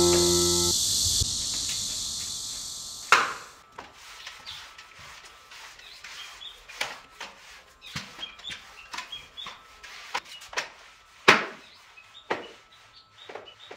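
Piano music ending about a second in, followed by scattered light knocks and clicks, two sharper than the rest, with faint short high chirps between them.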